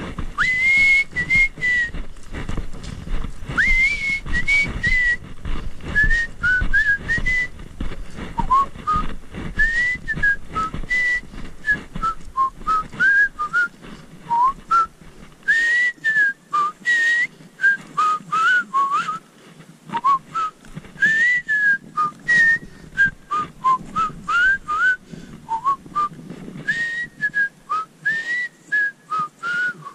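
A person whistling a tune, a continuous run of short notes with pitch slides, over footsteps on a dirt trail.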